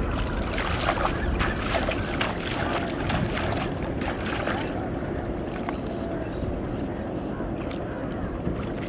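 Water splashing and sloshing as a man wades through shallow river water pushing a bamboo-framed triangular push net; the splashing fades about five seconds in. A steady low wind rumble on the microphone lies underneath.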